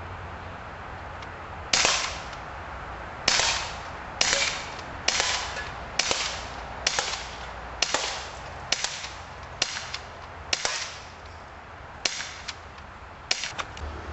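CO2-powered BB pistol firing about a dozen sharp shots, roughly one a second, with a short gap near the end before a quick last pair.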